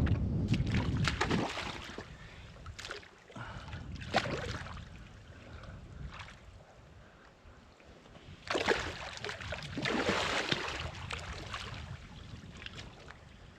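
Shallow water sloshing and splashing in uneven surges as a barramundi is released by hand. The splashing is loudest at the start, comes again about four seconds in, and picks up again after about eight seconds.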